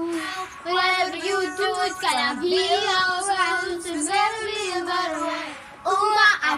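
Children singing a melody, the words hard to make out.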